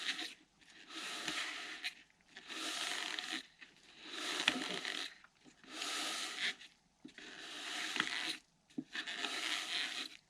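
Metal rod scraping around the inside sides of a jug of thick resin as it is hand-mixed with curing agent: about six slow, even strokes, each lasting about a second. Scraping the sides first works the curing agent down the side of the container.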